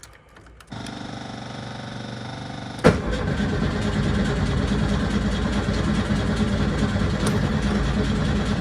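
A steady electric hum comes on. About two seconds later there is a sharp clunk as the starter engages, and the 1972 VW Super Beetle's air-cooled flat-four cranks steadily without catching: a no-start after a week of battery trouble, which the owner puts down to fuel or no spark.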